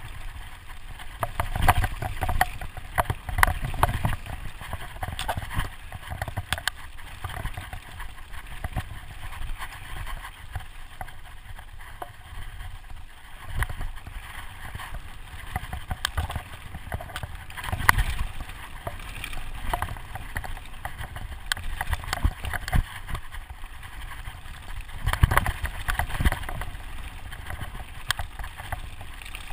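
Specialized Enduro Expert mountain bike descending a dirt trail at speed: wind buffeting the microphone with a constant low rumble, tyres running over the dirt, and the bike clattering and knocking over bumps, with harder jolts about 18 seconds in and again near 25 seconds.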